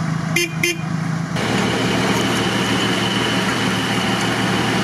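Off-road SUV engine running steadily while the vehicle sits stuck in deep mud, with two short vocal sounds under a second in. About a second and a half in, a louder steady rushing noise joins the engine sound.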